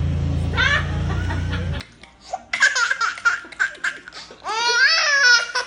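A baby laughing in quick high-pitched bursts, rising into a longer squealing laugh near the end. Before that, a steady low rumble with one brief squeal cuts off abruptly about two seconds in.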